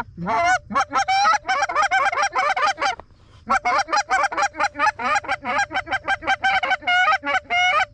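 Canada goose call blown in fast runs of clucks and honks, feed-chatter style, about eight notes a second, in two long runs with a short break about three seconds in.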